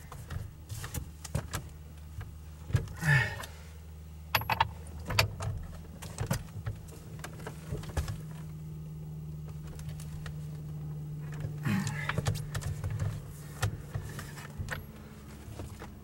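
Irregular metallic clicks and clinks of hand tools as a lock nut on a steering column is tightened down, over a steady low hum.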